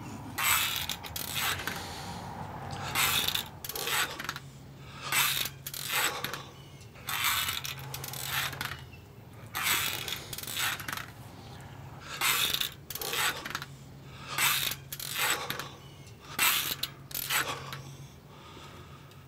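Short rattling bursts, about one a second in an uneven rhythm, over a steady low hum.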